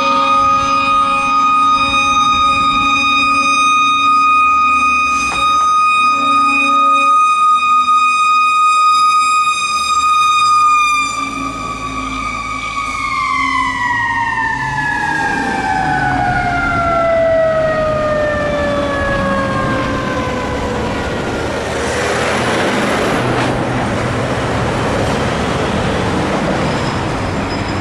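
Fire engine's mechanical siren held on one steady high note, then winding down, its pitch falling slowly over about eight seconds. The truck's engine and road noise follow as it passes close by.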